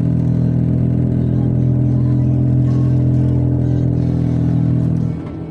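Car running on the road, heard as a loud, steady low drone made of several tones that drops away suddenly about five seconds in.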